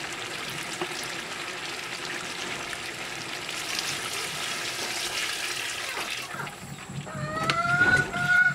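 Water poured from a plastic mug into a hot pot of frying chicken and turnip, splashing and hissing on the hot food. A tune comes in near the end and becomes the loudest sound.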